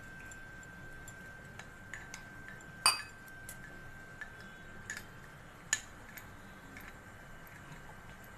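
Steel spoon clinking and scraping against a small glass bowl while stirring cornflour into water, in scattered light taps with one louder ringing clink about three seconds in.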